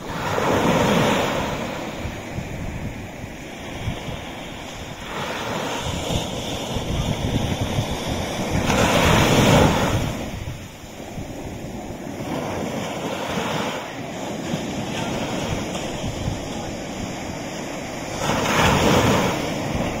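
Small ocean waves breaking at the shoreline and washing up the sand, swelling and fading every few seconds, with the biggest wash about halfway through.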